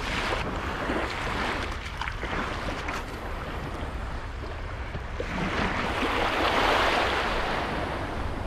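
Small waves washing onto a sandy beach, with wind on the microphone; one wash swells louder about six seconds in.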